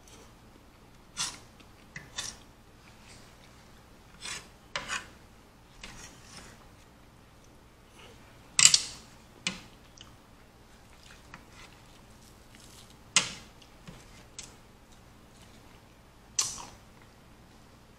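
Eating at a plate: a metal fork scraping and clicking against the plate in about a dozen short, separate sounds, the loudest a little past halfway.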